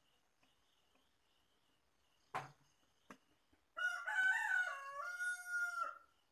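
A rooster crows once, a single call of about two seconds that steps down in pitch partway through, starting a little under four seconds in. A sharp click comes a couple of seconds in, and crickets chirp faintly throughout.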